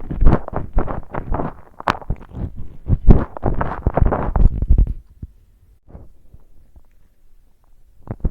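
Close-miked chewing of chicken nuggets and potato fries: a dense run of irregular bites and chews with a sharp click about two seconds in. The chewing stops about five seconds in, leaving only faint small sounds, and starts again at the very end.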